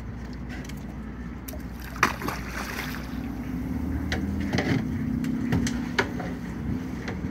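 Boat engine idling with a steady low hum, while fish splash at the surface several times, the sharpest about two seconds in and more a few seconds later.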